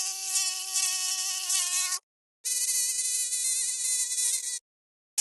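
Mosquito wing whine, a thin, nasal buzz. It cuts off dead about two seconds in and comes back half a second later at a higher pitch for about two seconds. It stops again and returns at the lower pitch right at the end.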